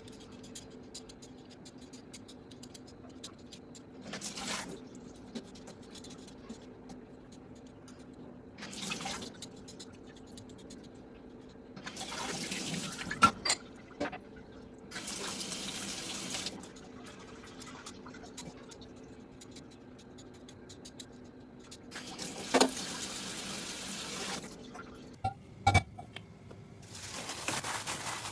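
Kitchen tap running in short spells into a stainless steel sink as peeled potatoes are rinsed under the stream, with a few sharp knocks in between and a faint steady hum underneath.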